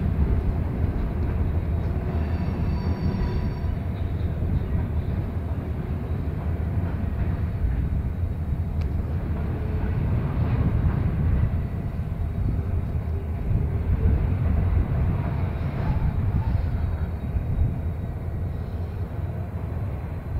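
Freight train of tank cars rolling slowly past, with a steady low diesel locomotive rumble.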